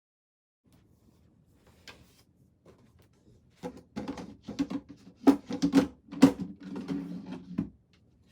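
Wooden furniture parts being handled during assembly of an IKEA Alex drawer unit: a run of knocks and clicks with a rumbling scrape, starting about halfway in and stopping just before the end.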